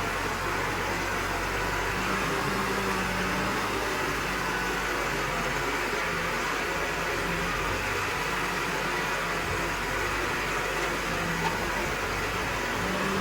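Backhoe loader's diesel engine running steadily, its low note shifting slightly from moment to moment.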